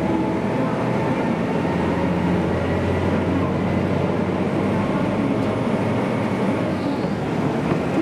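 Cabin noise inside a JR Kyushu KiHa 200 diesel railcar under way: a steady running drone from the engine and the wheels on the rails, with a low hum strongest in the first half.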